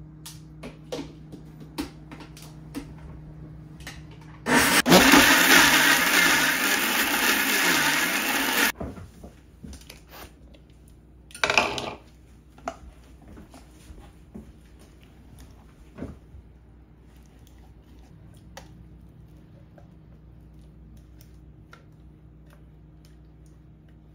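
Electric mixer grinder grinding soaked rice and urad dal into batter. It runs for about four seconds starting about five seconds in, then gives a second short pulse a few seconds later, with light clicks and knocks scattered around it.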